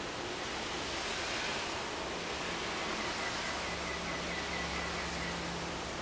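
Steady hiss of background noise, with faint rustling of a thin cloth laundry bag as two kittens tussle on it. A faint thin whine comes in for a few seconds in the middle.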